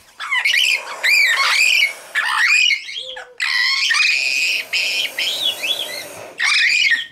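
Amazon parrots calling loudly, a string of harsh squawks with bending pitch and short breaks between them, the excited calling of birds riled up.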